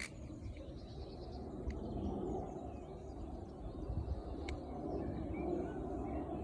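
Outdoor background: a steady low rumble with faint bird chirps and a couple of small sharp clicks.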